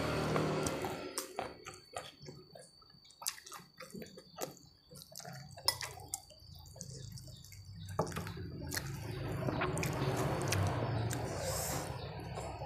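Close-up eating sounds: wet chewing and scattered lip-smacking clicks, then a steadier soft squishing noise in the second half as fingers gather rice and instant noodles by hand.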